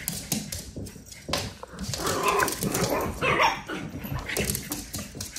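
Small dogs barking several times in play while chasing each other, with short clicks of their claws scrabbling on a hardwood floor.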